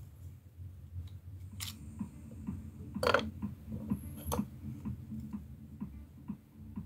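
Clicks and small ticks of a hair clipper being handled by hand, its metal blade and plastic housing knocking and snapping, with one louder clack about three seconds in, over a faint low hum.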